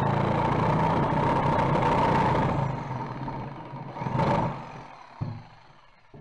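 Electric power saw cutting through a plywood sheet, its motor running steadily with a high whine. The motor winds down about two and a half seconds in, a short loud burst comes about four seconds in, and a light knock follows near the end.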